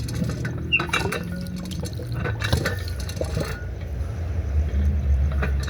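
Water splashing and trickling with metallic clinks and clatters as a hand-cranked water-play feature is turned.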